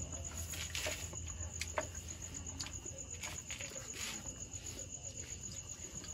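Crickets chirping in a fast, even pulse, with a few short clicks from plates being handled while eating by hand.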